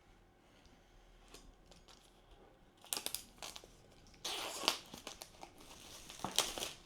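Packaging being opened by hand: plastic or foil wrapping crinkling and tearing in several short bursts, the first about three seconds in and the loudest near the end.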